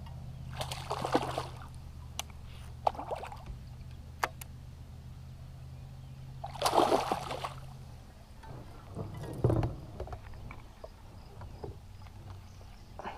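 Kayak paddle dipping and splashing in the water in several separate strokes, with a couple of sharp clicks between them over a low steady hum that stops about eight seconds in.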